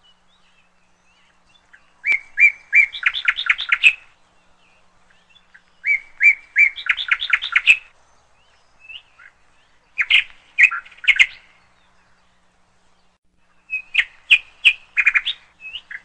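A bird singing in short bursts about every four seconds. Each burst is a few clear chirps followed by a quick run of rapid notes, with near silence between them.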